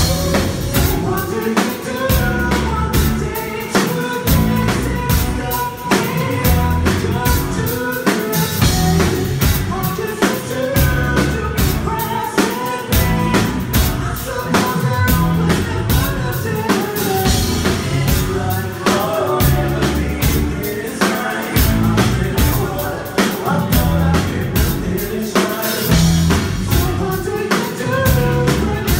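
Live band playing a song: a drum kit keeps a steady beat with kick and snare under a man's sung lead vocal.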